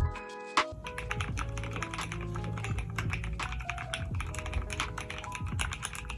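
Fast typing on a mechanical keyboard fitted with Glorious Polychroma keycaps: a dense, quick run of keystrokes starting about half a second in, with background music underneath.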